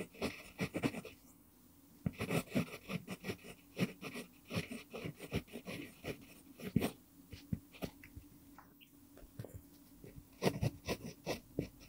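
Pentel PG5 mechanical pencil with an mpingo wood barrel writing cursive on lined paper: the lead scratches in quick strokes, grouped word by word, with short pauses between words.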